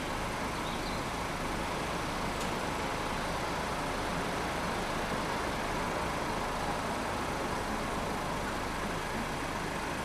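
Steady rush of road traffic with no single vehicle standing out.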